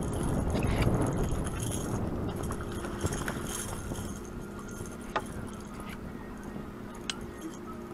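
Low rumbling noise, loudest in the first two seconds and then fading, with three sharp knocks about two seconds apart as a catfish is landed in a net over the side of a boat.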